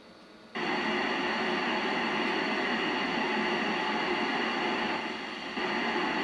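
Steady receiver hiss from the Yaesu FT-847's speaker, listening on the ISS 70 cm downlink. It cuts in abruptly about half a second in as the transmission ends, then holds, with a slight dip near the end.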